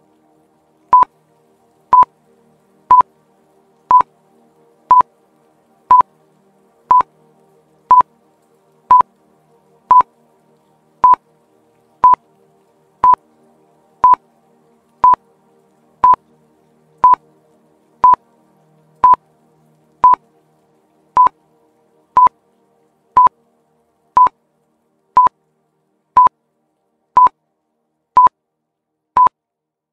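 Countdown timer sound effect beeping once a second, a short high beep on each tick, about thirty in all. Faint background music sits underneath for most of it.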